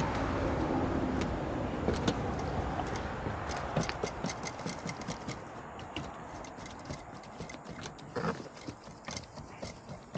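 A low rumble over the first couple of seconds, then irregular light clicks and knocks of a long-handled tool and boots working on a corrugated metal roof.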